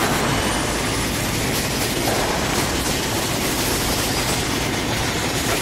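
Steady machinery noise: a low rumble under an even hiss, unchanging throughout.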